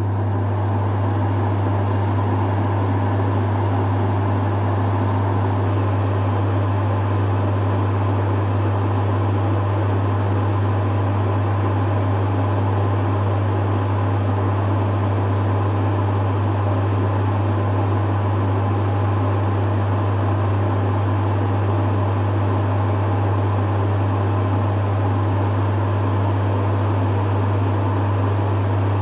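Dehumidifier running steadily: a deep constant compressor hum under the even rush of its fan, which levels off within the first second after switch-on.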